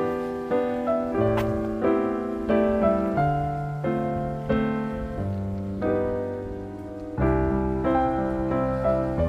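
Background piano music: a gentle instrumental tune of steady notes over a bass line.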